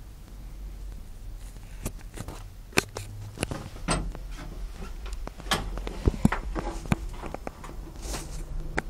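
Irregular sharp knocks and clicks of handling and moving about inside an AMX-13 tank turret's metal interior, over a low steady hum.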